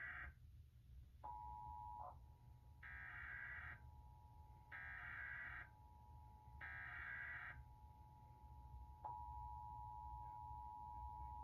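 Emergency Alert System test signals: three short screeching data bursts of the digital SAME header, each about a second long and a second apart. Under them runs the steady two-tone attention signal, which gets louder near the end.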